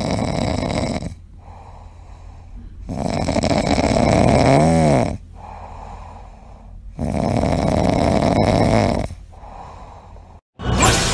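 A sleeping kitten snoring: long noisy snores of about two seconds each, coming roughly every four seconds with softer breaths between, one with a brief squeaky whistle in the middle.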